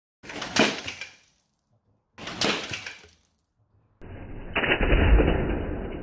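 Two short, sudden crashes, two seconds apart, each dying away within a second. Then a Lego Technic Mercedes Arocs truck model runs into a Lego Technic Dodge Charger model: a heavy thud about a second after the sound cuts in, followed by loose plastic Technic parts clattering.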